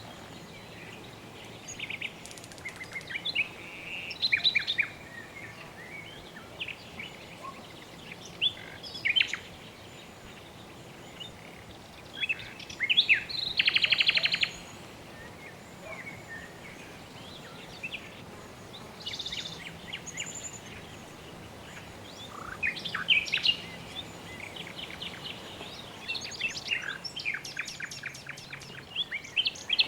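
Several birds chirping and calling in quick, varied phrases over a steady background hiss. A dense, buzzy trill comes about halfway through, and a busy run of rapid chirps fills the last part.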